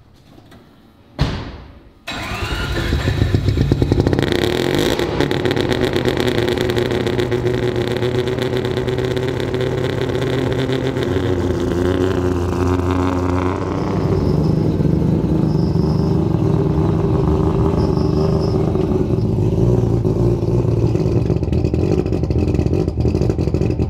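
Street-ported Mazda RX-7 rotary engine starting about two seconds in, revving briefly, then idling loudly with a rapid pulsing from the exhaust.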